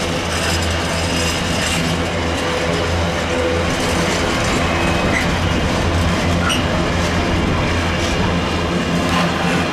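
Passenger train running at steady speed, heard from inside the carriage: an even rumble of wheels on rail over a low hum.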